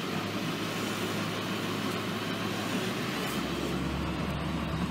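International T444E turbo-diesel V8 of an IC Bus CE Series school bus running as the bus drives, heard from inside the cab. Its steady low drone drops to a lower pitch about three seconds in.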